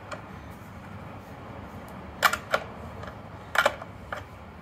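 Sharp metal clicks of a wrench working an axle nut: a few scattered clicks, two around the middle and a quick pair later.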